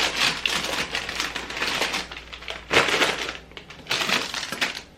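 Plastic snack packaging rustling and crinkling as bags are handled and sorted, with louder crinkles a little under 3 seconds in and about 4 seconds in.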